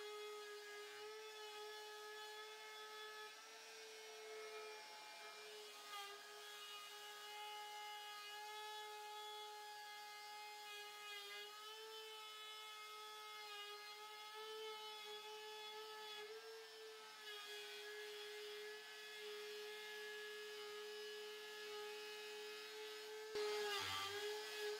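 DeWalt compact router running at speed as its bit cuts a juice groove into an end-grain hardwood cutting board: a faint, steady whine whose pitch wavers slightly as the bit loads in the wood. It is being fed counterclockwise, so the bit grabs the wood and pushes the router off the jig's edge. A brief louder noise comes near the end.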